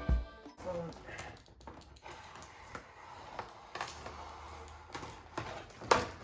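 Scattered light clicks and knocks of parts being handled, with one sharper knock near the end.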